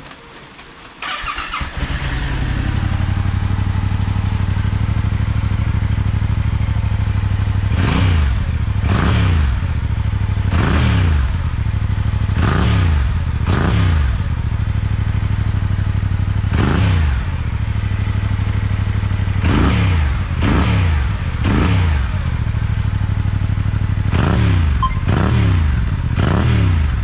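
Yamaha YZF-R7's parallel-twin engine starts about a second in, breathing through a freshly fitted Akrapovic titanium slip-on silencer. It settles into a steady idle, then is blipped about a dozen times in quick groups of two or three, each rev rising and falling back to idle. The note is a little deeper but not loud, as befits a road-legal (JMCA-certified) silencer.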